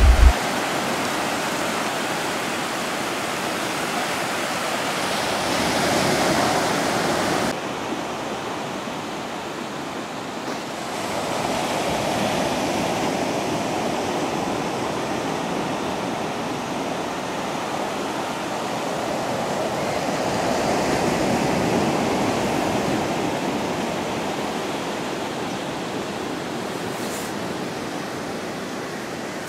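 Surf washing up a sandy beach: a steady rushing wash of small waves that slowly swells and eases, turning suddenly duller about seven seconds in.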